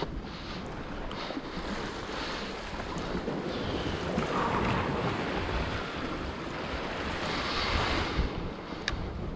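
Sea waves washing against a rocky shoreline, surging louder twice, with wind buffeting the microphone.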